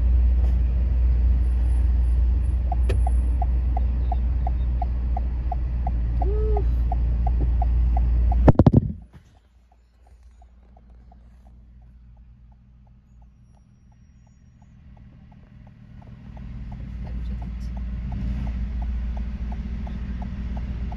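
Low rumble of a car driving, heard from inside the cabin, with a quick beep repeating about three times a second. About eight and a half seconds in comes a loud knock, after which the rumble falls away to quiet, then builds again in the last few seconds.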